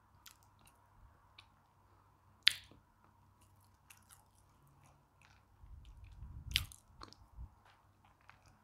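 Close-miked mouth sounds of chewing a biscuit with milk: soft wet clicks and smacks, one sharp loud smack about two and a half seconds in. A louder low stretch builds near six seconds and ends in another sharp click.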